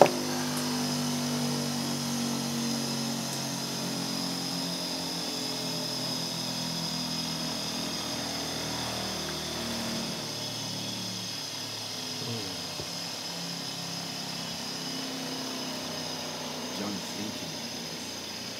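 Steady hum of an electric shop motor, several low tones with a faint high whine above, slowly fading and thinning out after about ten seconds. One sharp click at the very start.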